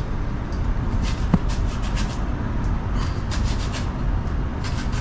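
Food preparation at a kitchen counter: clusters of small clicks and scrapes from utensils and dishes being handled, with one sharper tick about a second in, over a steady low rumble.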